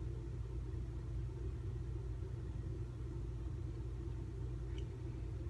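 Steady low background hum with no change in level, with a faint small tick near the end.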